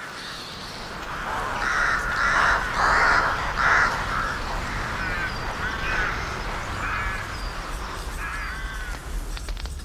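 Crows cawing: a cluster of loud, harsh caws about two to four seconds in, then fainter caws repeating at intervals.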